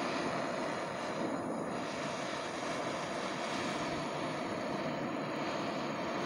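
Handheld gas-cartridge torch burning with a steady flame hiss as it chars the surface of wooden planks.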